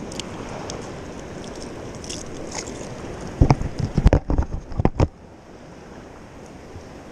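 Small waves washing in the shallows, with wind noise. About three and a half seconds in comes a cluster of heavy thumps on the microphone lasting about a second and a half.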